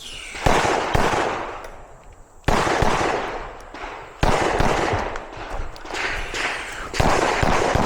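Compensated 9 mm PSA Dagger pistol (a Glock 19 clone) firing during a stage: five loud shots, two of them half a second apart near the start, then single shots spaced a second or more apart, with fainter shots between. Each shot rings on in a long echo.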